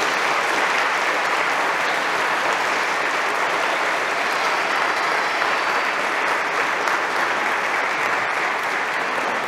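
Congregation applauding, a dense, steady clapping that carries on without a break.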